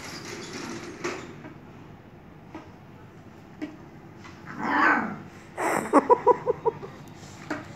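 A puppy giving one longer call about five seconds in, then a quick run of about six short, high yips.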